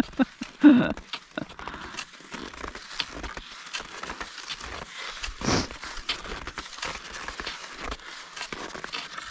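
Cross-country skis and poles crunching and scraping in snow, an irregular run of small crunches and clicks, with a louder whoosh about five and a half seconds in.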